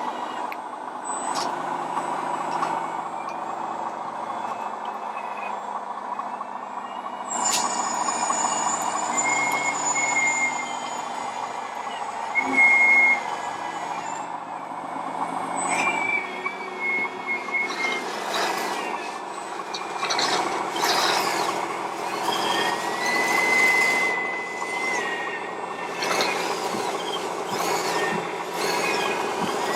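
Scale RC trucks' electronic sound modules playing truck sounds: a steady engine drone, several high held beeps, and repeated air-brake-like hisses in the second half.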